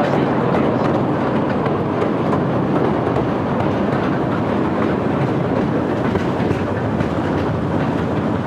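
Kurobe Gorge Railway narrow-gauge trolley train running, heard from aboard: a loud, steady noise of wheels on rail.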